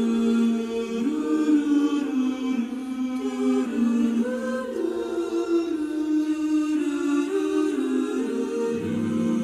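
Slow, wordless choral music: several voices hold sustained chords that change gently, with a low bass note coming in near the end.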